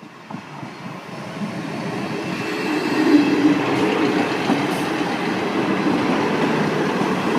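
Class 158 diesel multiple unit passing over the level crossing, its noise building over the first few seconds as it approaches and then holding steady as it runs by.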